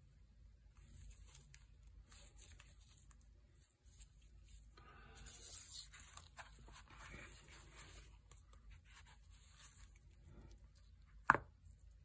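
Gloved hands handling a phone lens, its plastic caps and a soft zippered carrying case: rustling of nitrile gloves and case fabric with light taps, and one sharp click near the end as the lens or a cap is set down.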